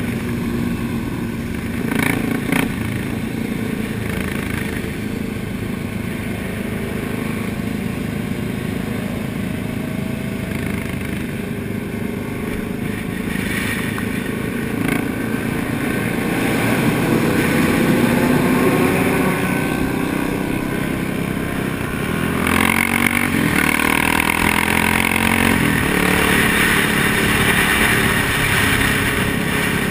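Sport motorcycle engines running at road speed with wind rush. The engine note climbs slowly through the middle, then rises more sharply as the bike accelerates a little over two-thirds of the way through.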